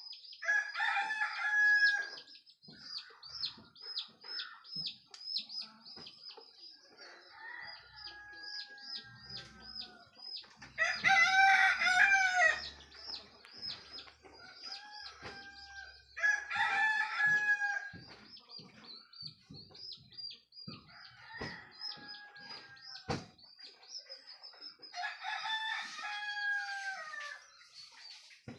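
Roosters crowing at dawn, several long crows one after another, some loud and close, others fainter. The loudest comes about eleven seconds in. A steady, rapid, high-pitched chirping runs underneath.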